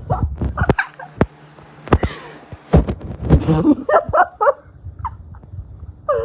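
A girl making silly noises with her voice and mouth: a run of short vocal squeaks and sharp mouth clicks, with a breathy hiss about two seconds in.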